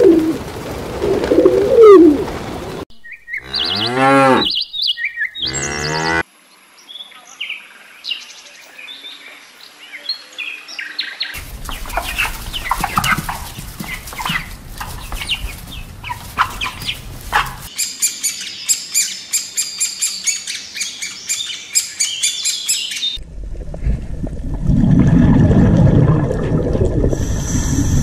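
A run of different animal sounds cut one after another: pigeons calling at the start, then a crowd of chickens clucking, then high rapid chirping, and a low rushing noise near the end.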